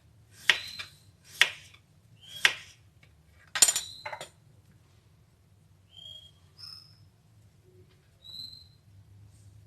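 A glass jar clinking and knocking five times in the first four seconds as sliced radish is put into it, a couple of the knocks ringing briefly. Later a few faint, short bird chirps.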